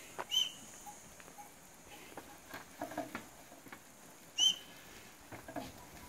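Goats shuffling and stepping about on dry, stony ground, with scattered soft hoof taps and knocks. A short, high chirp sounds twice, just after the start and about four and a half seconds in; these are the loudest sounds.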